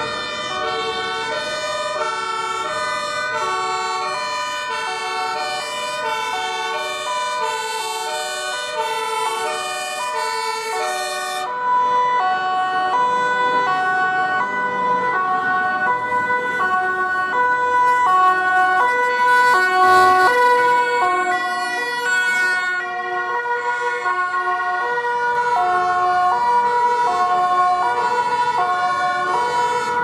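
Several German two-tone compressed-air sirens (Martinshorn) on fire engines and an ambulance sounding at once and out of step with one another, so their high-low alternations overlap. There is a brief louder noise about twenty seconds in.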